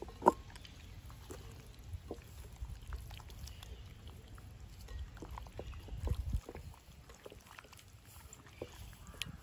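Wet squelching and squishing of raw chicken drumsticks being mixed by hand in a bowl with a runny egg and spice marinade, in short irregular squishes and clicks.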